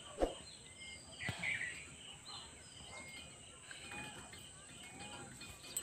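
Faint rural outdoor ambience: birds chirping now and then over a steady high-pitched insect drone, with two light knocks in the first second and a half.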